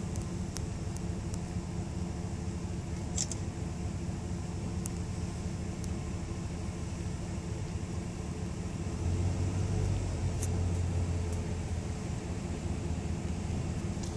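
Car engine idling steadily, a low hum with a few steady tones; the low rumble swells for a couple of seconds about two-thirds of the way through.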